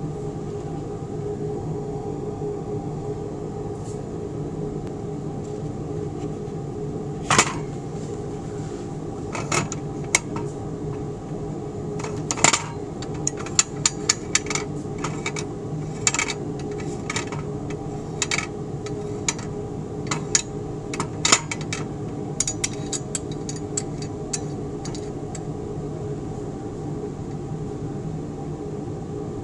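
Triple beam balance riders clicking as they are slid along the notched beams: a scatter of short sharp clicks through the middle, over a steady hum.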